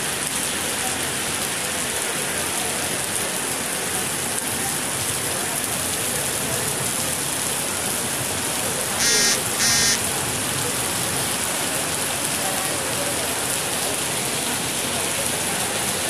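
Heavy rain pouring steadily onto paving and puddles, a dense even hiss. About halfway through, two short high beeps rise above it, less than a second apart.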